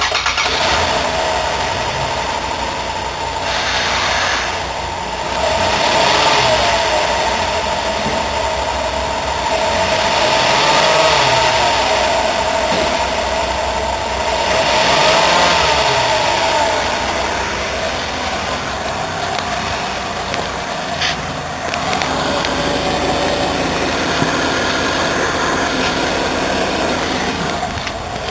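2005 Dodge Grand Caravan's V6 engine running at idle, its pitch rising and falling back three times as it is revved lightly.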